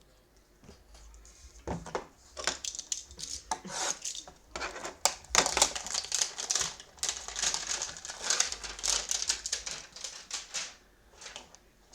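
Card packaging being torn open and crinkled by hand: irregular crackling and rustling with many sharp clicks as a trading card hanger box is opened. It starts about two seconds in and dies away shortly before the end.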